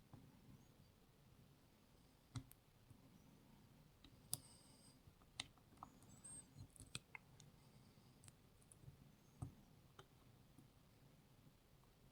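Lock picks working the pins of a CES pin-tumbler lock in a false set: faint, irregular metallic clicks and small scrapes as pins are nudged and set, the loudest click about four seconds in.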